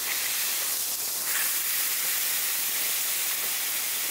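Beef patties topped with thinly sliced onion sizzling on a hot plancha, just pressed flat: a steady high hiss.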